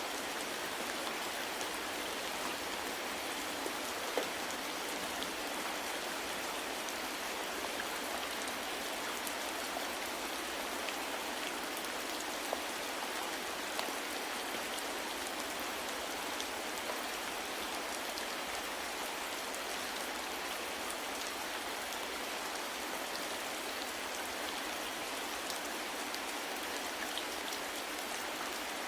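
Steady rain falling: a dense, even patter with a few louder single drops ticking out of it now and then.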